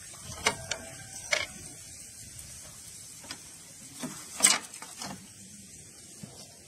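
Handling noise from fishing gear as a caught fish is taken in hand: a handful of sharp clicks and knocks, two in the first second and a half, and a cluster with the loudest one about four and a half seconds in.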